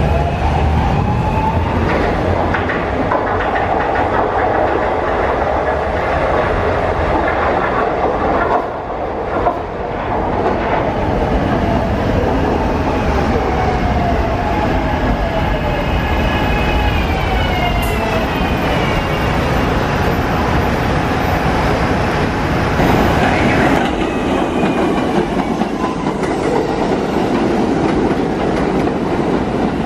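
SEPTA AdTranz M4 elevated train's traction motors whining, rising in pitch at the start as it pulls away. Later a train's motor whine falls in pitch as it slows into the station. Near the end comes a New York City R68A subway train running past the platform.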